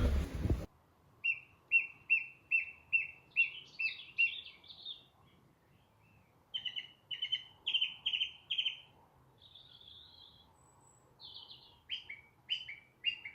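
A bird chirping: runs of short, evenly spaced chirps, about two a second, in three bouts with short pauses, and a single buzzier note between the second and third bouts. A louder sound cuts off abruptly within the first second.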